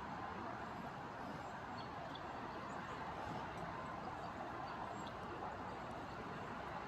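Steady outdoor rushing noise with a few faint, high, short bird chirps.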